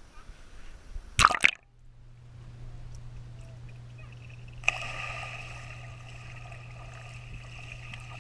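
Splash as a waterproof camera goes under the surface of a swimming pool about a second in, then muffled underwater sound with a steady low hum. A little over four seconds in, two swimmers jumping in set off a sudden, continuing rush of bubbling water heard underwater.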